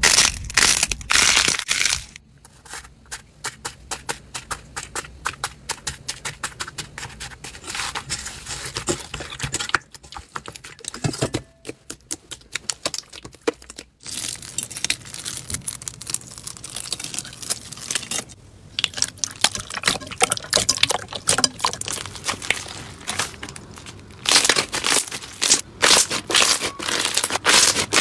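Slime being squeezed and kneaded by hand, including foam-bead slime pressed in a bowl: dense runs of small crackles, pops and clicks that change in character as one slime gives way to another. Loudest at the start and over the last few seconds.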